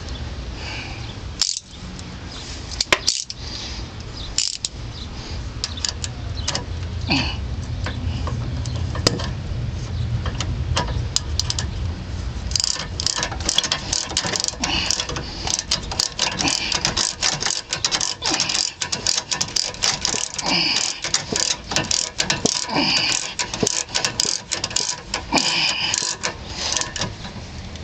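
Hand ratchet wrench clicking in quick runs of strokes while tightening the nut of a sway bar end link, with a low hum underneath for roughly the first twelve seconds.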